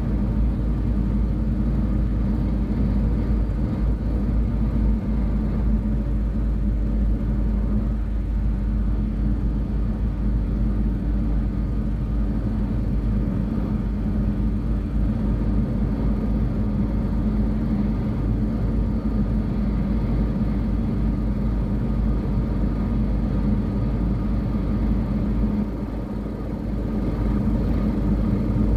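Road noise inside a moving car's cabin at highway speed: a steady low rumble of engine and tyres, easing off briefly near the end.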